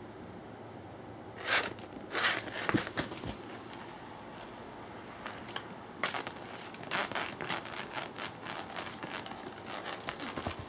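Cats pouncing and scuffling after a toy mouse on a string on a tatami mat: quick taps, scrapes and rustles in two flurries, the first about one and a half seconds in and the second about six seconds in, with a faint thin high ringing note in the first.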